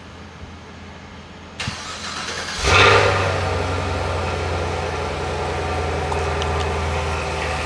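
Chevrolet Camaro engine being started: it cranks briefly, catches with a loud flare about two and a half seconds in, then settles into a steady idle.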